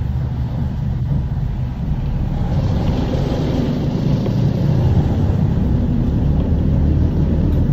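City bus engine and road noise heard from inside the cabin: a steady low rumble with a faint engine hum.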